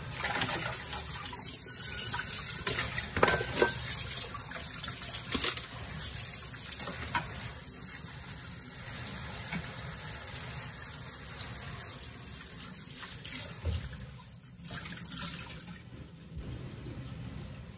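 Kitchen tap running into a sink as a metal pan is rinsed, with a few sharp knocks of the pan in the first several seconds. The running water quietens about fourteen seconds in.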